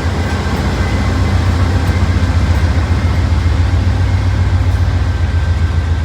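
Diesel-electric locomotive engine running with a steady, loud low rumble.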